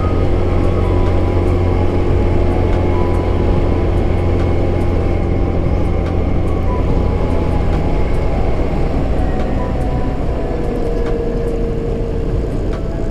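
Riding noise from a Honda Click 125i scooter cruising at around 50 km/h: steady wind rush and low rumble on the microphone, with the scooter's single-cylinder engine running.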